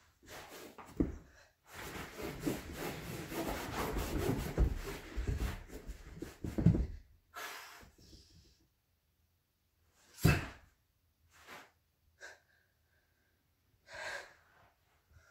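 A person's movement on a carpeted floor, with rustling and dull thumps, mixed with effortful breathing and gasps. Later come a few short, separate sharp breaths and sniffs, the loudest about two-thirds of the way through.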